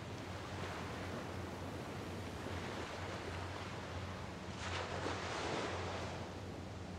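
Small San Francisco Bay waves washing on the shore, with one wave breaking and washing up a little louder about four and a half seconds in, over a steady low rumble.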